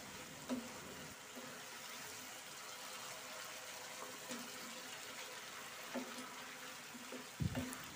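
Faint steady sizzle of a thick taro (kochur mukhi) curry cooking in an open pan, with a few soft knocks.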